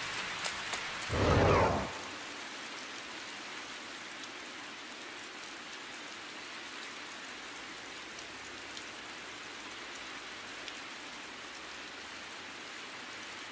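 Heavy rain falling steadily, with a brief loud, deep rumble of thunder about a second in.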